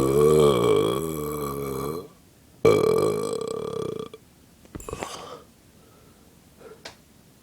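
A person burping after bloating the stomach. One long, loud belch with a wavering pitch ends about two seconds in, then a second, shorter burp follows, and two faint short sounds come after it.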